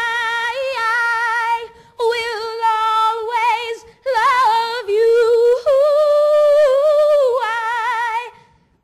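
A woman singing unaccompanied in long held notes with a strong vibrato, in three phrases; the last rises to a higher note that is held for a couple of seconds.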